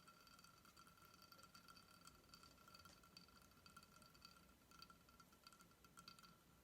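Near silence: a faint steady high-pitched whine with faint scattered ticks and clicks that stop about six seconds in.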